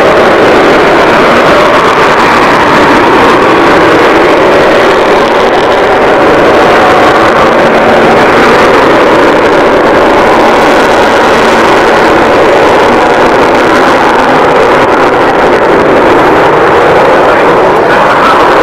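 Avro Vulcan bomber's four Rolls-Royce Olympus turbojets making a loud, steady jet roar as it flies its display overhead.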